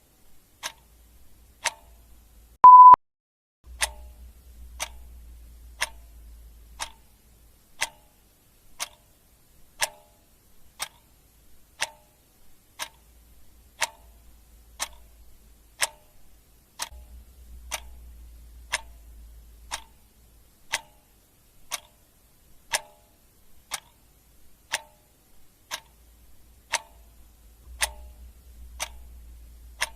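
Clock ticking steadily, about one tick a second. A single short high-pitched electronic timer beep sounds about three seconds in and is the loudest sound. A faint low rumble comes and goes underneath.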